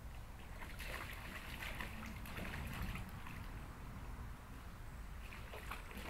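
Water splashing and sloshing in a shallow plastic kiddie pool as a dog moves about in it, in irregular splashes starting about a second in.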